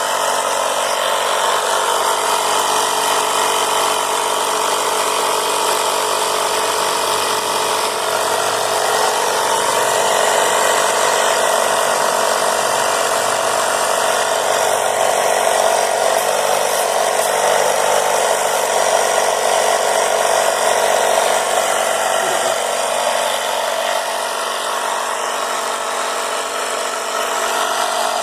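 Small portable tire-inflator air compressor running steadily, inflating a pickup truck tire.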